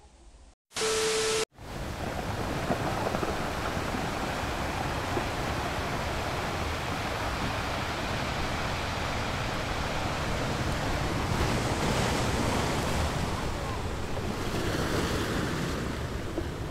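Steady rushing wind noise on a phone's microphone. About a second in comes a short, loud transition sound with a steady tone.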